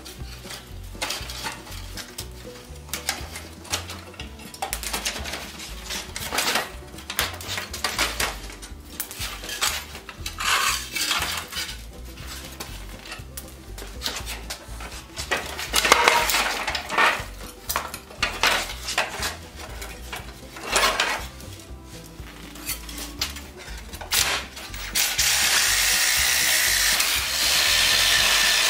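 Iron and wood parts of an old coach driver's box clanking and knocking irregularly as it is taken apart by hand. About 25 seconds in, a cordless power tool starts running steadily on the frame.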